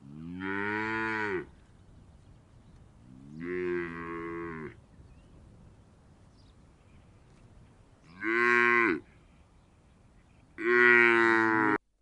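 Cow mooing four times, each moo a second or so long with a few seconds between them; the last moo cuts off suddenly.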